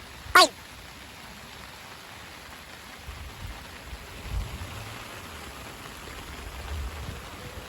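Steady rain falling, with one sharp knock about half a second in and a few soft low rumbles later.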